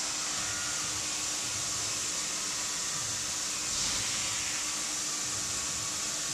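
Steady airy hiss of a running motor-driven blower, with a low steady hum beneath it, swelling briefly about four seconds in.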